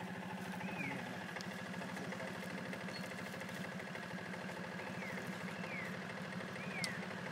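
An engine idling steadily, with a fast, even low pulse. About four short, high chirps, each rising then falling, sound above it, two of them close together past the middle.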